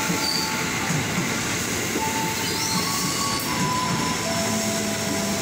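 KRL Commuter Line electric train running past at speed: a steady rush of wheels on the rails, with short squealing tones from the wheels coming and going.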